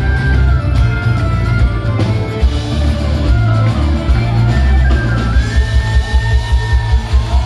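Live Celtic rock band playing loud: a fiddle melody over electric guitar, bass and drums. Near the end the drums switch to a fast, steady beat.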